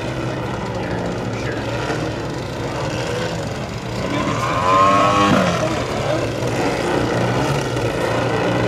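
Engine of a giant-scale 3DHS Extra 330LT aerobatic model airplane running steadily in flight. About five seconds in it gets louder and the pitch swells and falls away as the throttle changes or the plane passes close.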